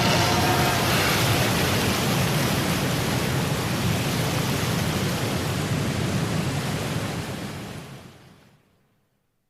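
Anime sound effect: a steady rushing, rumbling noise, like wind or surf, that fades away near the end.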